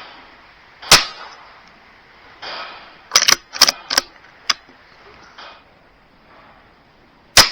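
BSA Super10 .22 PCP air rifle firing about a second in, with the shot's crack echoing briefly in the shed. A quick run of about five metallic clicks follows, typical of the bolt being cycled to load the next pellet, and the rifle fires again near the end.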